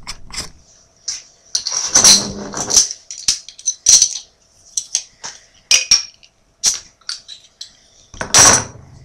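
Metal crown cap of a glass cider bottle being worked off with an opener: a run of uneven metallic clicks and scrapes, the loudest near the end as the cap comes free.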